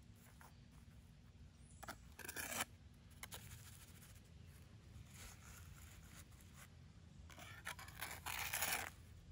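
Pointing trowel scraping and pressing wet mortar into the joints between fieldstones: a short burst of scraping about two seconds in and a longer one near the end.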